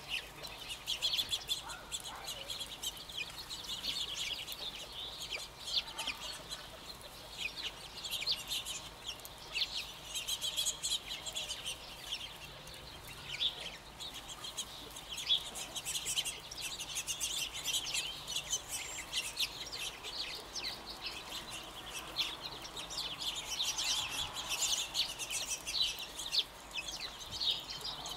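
A flock of California quail feeding, giving a continual stream of short calls, many overlapping.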